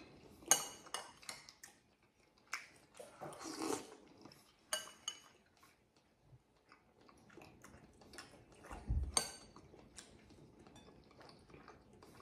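Metal spoon clinking and scraping against ceramic bowls while eating curry, several separate sharp clinks a few seconds apart with soft chewing between.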